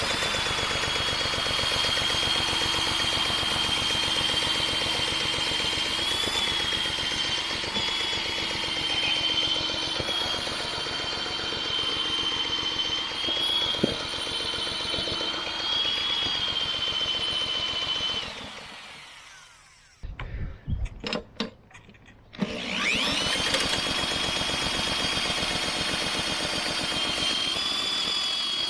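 A power drill spinning over a Briggs & Stratton 125cc lawnmower engine that is not catching. The drill's motor whines up quickly to a steady high pitch over the engine's rapid chugging. About 18 seconds in it winds down, a few clicks follow, and it spins up again about 22 seconds in.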